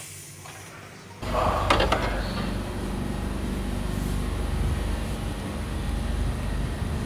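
Red Line subway car doors sliding open about a second in, with a short run of clicks, then the steady hum of the train standing at the platform.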